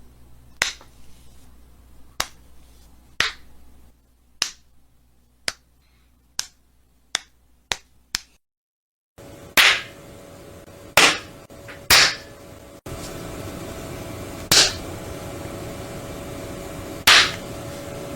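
A series of single sharp slaps, each cut off short. The first run of nine comes closer and closer together. After a brief silence, a second set of five louder slaps plays over a steady background hum, one every one to two and a half seconds.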